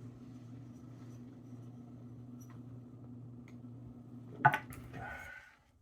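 Quiet room with a steady low hum and a few faint clinks; about four and a half seconds in, a sharp knock of a glass set down on a hard surface.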